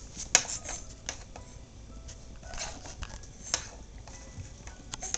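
Scattered light taps and knocks of a small toy against a wooden train table, at irregular intervals, the sharpest about a third of a second in.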